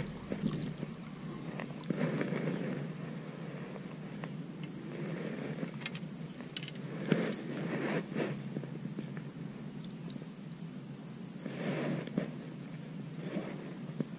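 A steady high-pitched insect chorus, one constant shrill tone with a second one pulsing in a regular rhythm, over soft rustling and a few light clicks from hands handling a freshly caught bluegill.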